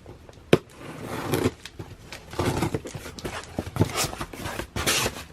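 A shipping box being opened by hand: one sharp snap about half a second in, then irregular rustling and scraping of the box and its packaging.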